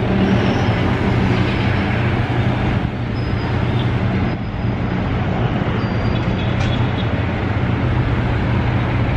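Steady city traffic noise from the streets below, a continuous wash of vehicle sound with a low steady hum underneath.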